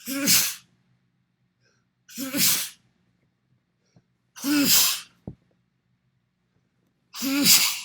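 One person sneezing four times, about two seconds apart. Each sneeze is a short voiced cry that bursts into a loud hissing blast of breath. A small click follows the third sneeze.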